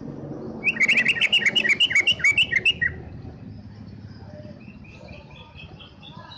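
Caged green leafbird (cucak ijo) singing: a loud, rapid run of sharp high notes, about eight a second, lasting some two seconds, then softer chirps near the end.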